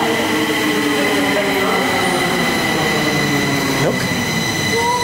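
Stockholm metro train pulling out of the station: electric motor whine and running noise on the rails, with several steady high tones. The motor pitch sinks slowly as the train moves away, and a brief rising squeal comes near the end.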